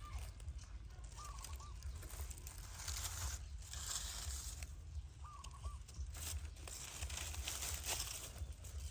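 Baby monkey giving short, wavering squeaks three times, over rustling, crinkling handling noise and a steady low hum.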